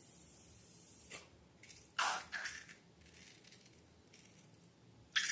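Slime being handled: a few short wet squishes, the loudest about two seconds in and another near the end.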